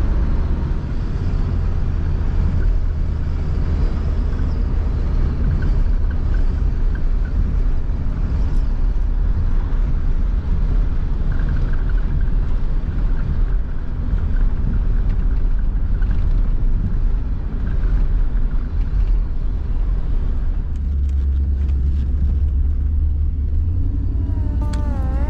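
1994 Chevrolet G20 van's 5.7-litre V8 running steadily under way, heard from inside the cabin as a low engine rumble with tyre and road noise. The road noise drops away a few seconds before the end, and music comes in at the very end.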